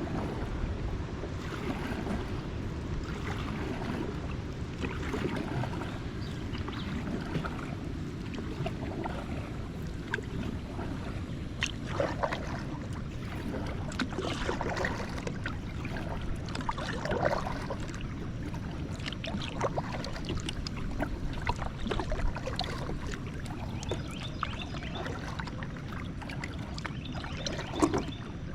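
Kayak paddling on a river: irregular paddle splashes and drips over a steady low rumble.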